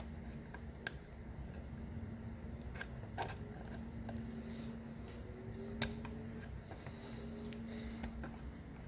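Scattered small clicks and scrapes as a worn plastic taillight-lens anchor is worked loose and pried out of a C3 Corvette taillight housing, over a steady low hum.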